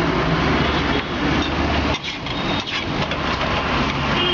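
Roadside traffic noise, with a motor vehicle engine running steadily close by.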